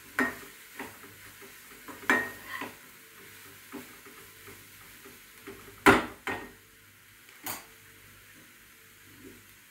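A metal spoon scraping and knocking against a frying pan as spice masala is stirred in hot oil, with a faint sizzle underneath. The strokes come at uneven intervals, the loudest clank about six seconds in.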